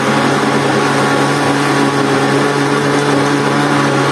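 Electric countertop blender running steadily at a constant pitch, blending watermelon juice, then cutting off right at the end.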